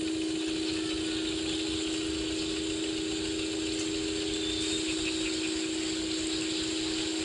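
A loud, steady electronic tone held at one unchanging pitch, with a hiss of room noise beneath it.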